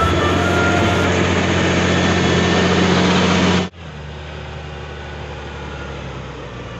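Massey Ferguson tractor's diesel engine running steadily under ploughing load. Its sound cuts abruptly a little over halfway through to a quieter take of the same steady engine.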